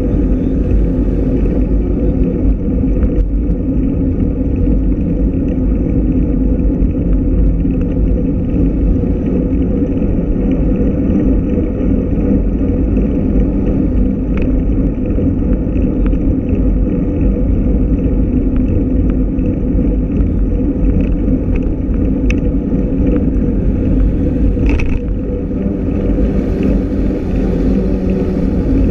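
Steady low rumble of wind and road noise on a bicycle-mounted camera's microphone while riding along with a group of cyclists, with a few short ticks about halfway through and near the end.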